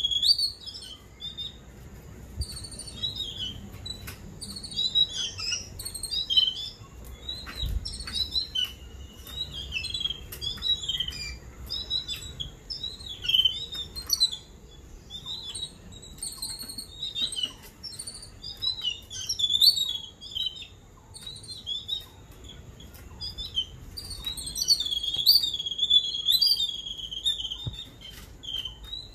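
A flock of babblers calling: many short, overlapping chirps and chattering calls in bouts, busiest near the end.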